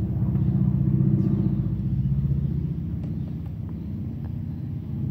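Steady low engine rumble, with a few faint, short, high calls from a flock of circling birds.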